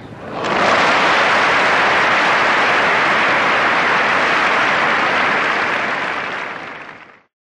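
A loud, steady rushing noise with no pitch or rhythm, like a recording of applause. It swells in over the first second and fades away about seven seconds in.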